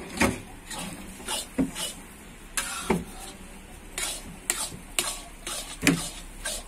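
A long metal ladle scraping and stirring zunka (onion and gram flour being roasted) in a large metal kadhai over a wood fire. The scrapes come unevenly, about two strokes a second.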